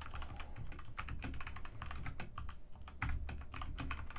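Typing on a Redragon K617 Fizz 60% mechanical keyboard with red linear switches: a quick, uneven run of keystrokes.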